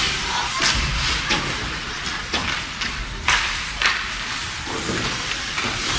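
Ice hockey play: a handful of sharp clacks and knocks from sticks, puck and boards, the loudest two a little past the middle, over the steady hum and scrape of the rink.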